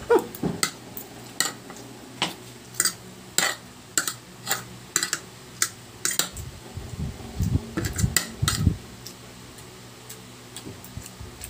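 Metal spoon and fork clinking and scraping against a ceramic plate of rice while eating: sharp, irregular clinks, about one or two a second, thinning out near the end.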